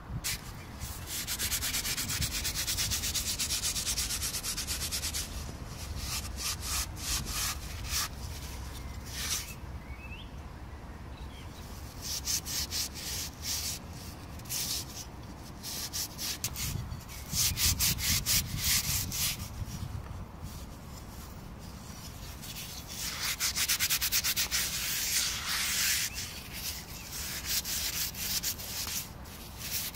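Metal wire scouring pad scrubbing the glazed surface of a smoke-fired raku ceramic piece: quick back-and-forth scraping strokes in several bursts, with short pauses between them.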